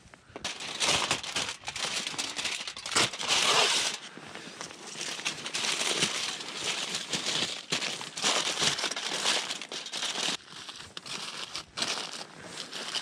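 Aluminum foil crinkling and crackling in irregular bursts as it is handled and folded around a fish.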